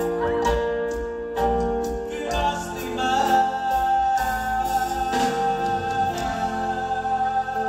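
Live regional Mexican band music with singing and a steady bass line.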